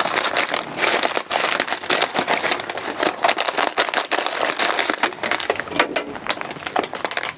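Plastic packet of live sphagnum moss crinkling and crackling as it is handled and opened by hand, a dense run of quick rustles that stops near the end.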